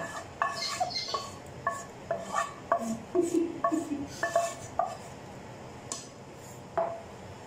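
A wooden spatula knocking and scraping against a nonstick skillet as meat sauce is scraped out into a baking dish: a quick run of short, ringing knocks for about five seconds, then two single knocks near the end.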